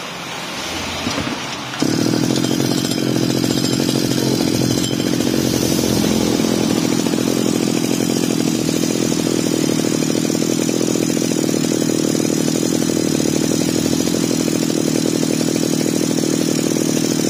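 Stihl backpack brush cutter's small petrol engine being started, catching suddenly about two seconds in and then running steadily. The owner puts its running trouble down to a faulty carburettor.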